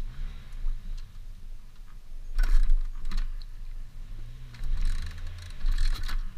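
Small pit bike engine running, its pitch rising and falling with the throttle, with a few sharp knocks and rattles from the bike.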